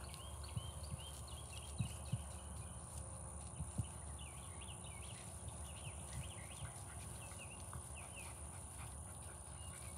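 Puppies scrambling through tall grass: faint rustling and a few soft thumps, with short high chirps scattered through the first several seconds over a low rumble.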